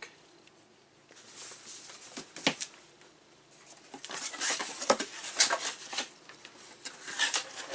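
Handling noise: irregular rustling and scraping with sharp clicks, as a Mac Classic analog board and its packaging are handled.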